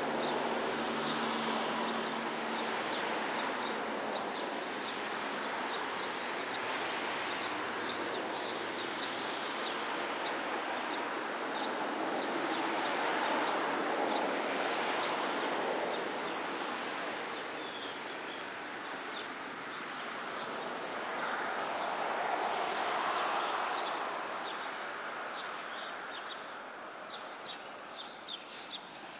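Steady outdoor background noise with faint bird chirps, and a few short clicks near the end.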